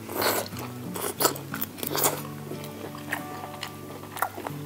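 Close-up eating sounds: a bite into a crisp-skinned roast chicken leg just after the start, then chewing with clicks and smacks, over steady background music.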